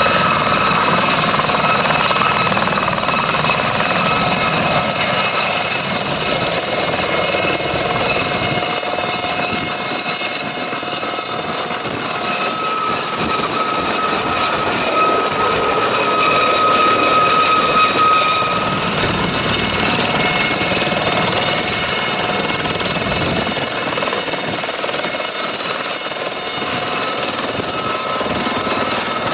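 Aérospatiale Gazelle helicopter in a low taxi hover, running steadily: a high-pitched whine from its Astazou turboshaft and Fenestron ducted tail rotor over the rush of the main rotor.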